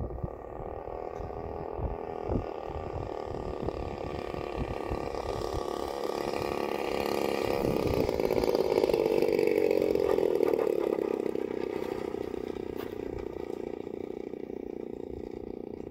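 Single-cylinder DLE 35RA two-stroke gasoline engine of a radio-controlled Gee Bee Model Z running through the landing approach and touchdown. It grows louder as the plane passes close, about eight seconds in, then drops in pitch and fades as the plane rolls out along the runway. Wind rumbles on the microphone in the first few seconds.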